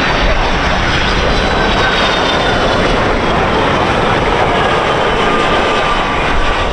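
Boeing 757's twin jet engines at approach power as the airliner passes low and close on final approach: loud, steady jet noise with a high whine that slowly falls in pitch.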